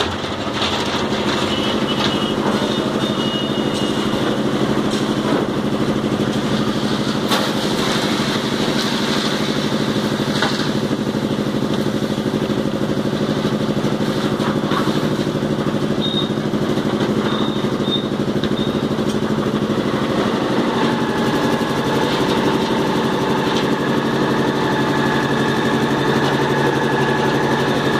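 Engine of a concrete mixer machine running steadily under load. A steady high whine joins it after about twenty seconds.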